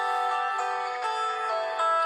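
LG Leon phone playing a ringtone: a melody of several notes sounding together, the notes changing every quarter to half second.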